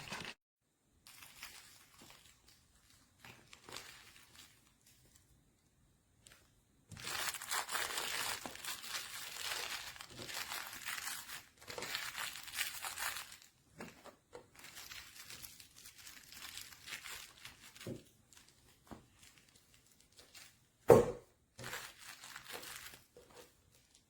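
Dog chewing and tugging at a plush toy: irregular crinkly rustling and crunching that comes in bursts, busiest in the middle, with one short, louder sound near the end.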